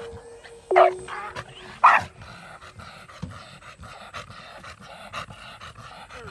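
A dog barking twice, about a second apart, with quick, even rhythmic sounds continuing underneath.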